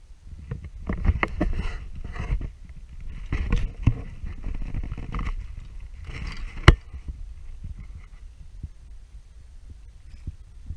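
Water sloshing and slapping against a kayak hull in uneven bursts, with one sharp knock on the hull about two-thirds of the way through.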